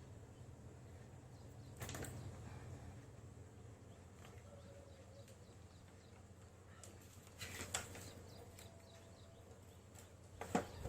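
Faint steady low hum with a few small clicks and knocks, about two seconds in, around eight seconds in and just before the end: hands handling the emergency light and its charger cable.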